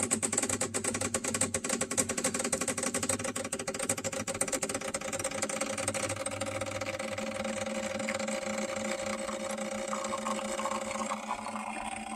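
Decent DE1+ Pro espresso machine's pump running mid-shot, forcing water through the coffee puck at high pressure, a bit over 10 bar. It is a steady hum with a fast rattling pulse that evens out over the first few seconds.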